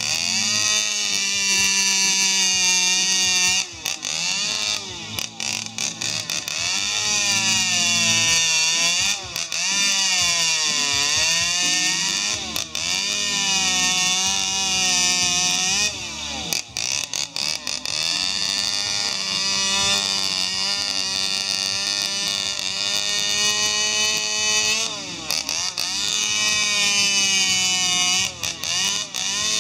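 Two-stroke chainsaw running at high revs as it carves into a wooden log, its pitch rising and falling as the chain bites and frees, with a few brief letups of the throttle.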